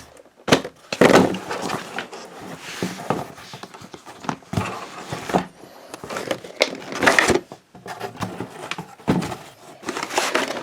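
Cardboard and plastic packaging of a boxed trading-card collection being handled: irregular rustling and scraping with sharp clicks and knocks.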